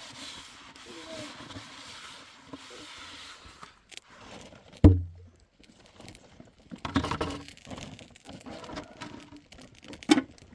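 Faint voices in the background, then one loud, low thump about five seconds in, followed by rustling and a sharp click near the end.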